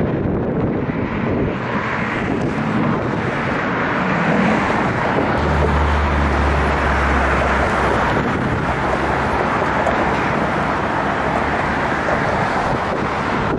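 Jet roar from the Blue Angels' F/A-18 Hornets, a steady loud rushing noise, with wind buffeting the microphone; a low hum joins for a few seconds around the middle.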